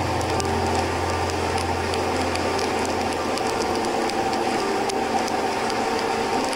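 Steady rushing wind and wet-road noise of a motorcycle riding at highway speed in the rain, as picked up by a bike-mounted action camera. A low engine hum sits under it through the first half, with scattered faint ticks.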